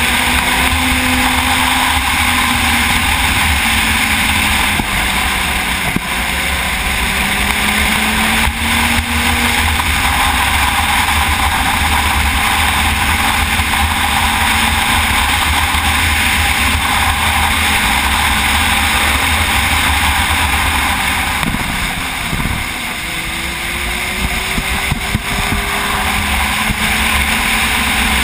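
Sport motorcycle riding at speed: a steady rush of wind on the microphone over the engine, whose note rises and falls gently with the throttle. About three-quarters of the way through the engine eases off briefly, then picks up again.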